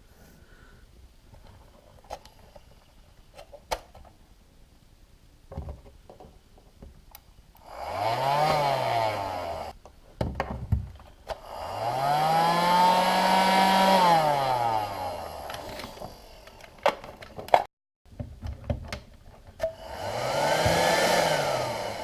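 Small 12-volt car vacuum cleaner (cigarette-lighter plug type) switched on and off three times, the motor whine rising as it spins up and falling as it runs down; the middle run is the longest. Clicks and handling knocks between the runs.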